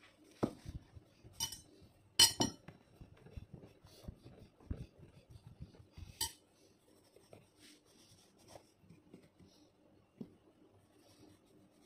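Kitchen utensils and dishes being handled: a metal utensil clinking against dishes and containers, with scattered sharp clinks and knocks and quieter tapping between. The loudest clinks come about two seconds in and again about six seconds in.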